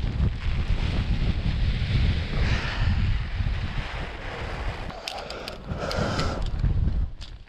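Strong gusting wind buffeting the microphone with a heavy rumble. Rustling and handling noises come in about five to six and a half seconds in.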